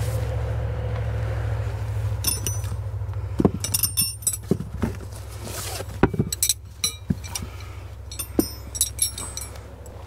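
Metal tent stakes clinking and jangling against each other as they are handled, a scattered run of short ringing clinks.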